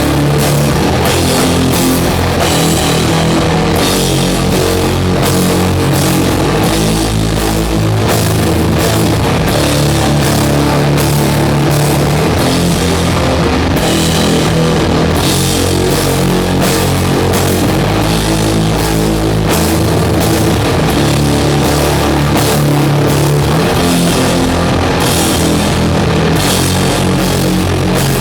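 Doom metal band playing live and loud, with heavily distorted, down-tuned guitars and bass holding low chords over drum kit hits and cymbals; no vocals.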